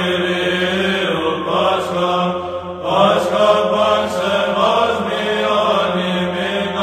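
Byzantine chant: a melody sung over a steady held drone (the ison), with a short break between phrases nearly three seconds in.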